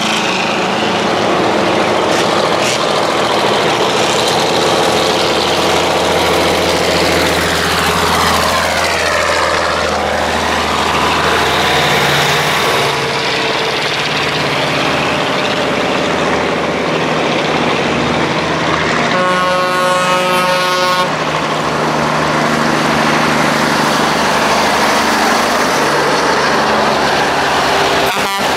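Vintage Brockway heavy trucks' engines running steadily as they approach, the engine note dipping and climbing once about a third of the way in. A truck air horn sounds for about two seconds roughly two-thirds of the way through.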